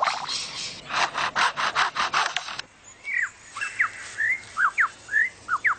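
Superb lyrebird mimicking foresters' chainsaws: a run of harsh, rasping sawing strokes, about five a second. About halfway through it switches to a series of clear, sweeping whistled notes.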